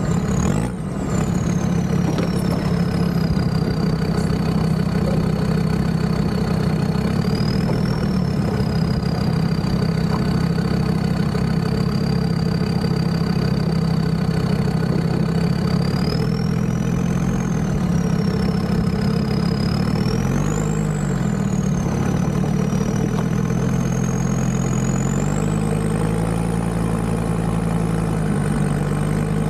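Land Rover Discovery 2's Td5 five-cylinder turbodiesel running at low, slowly varying revs, as in crawling along a trail, with a thin high whine that rises and falls with engine speed. Revs pick up briefly around two-thirds of the way through and again near the end.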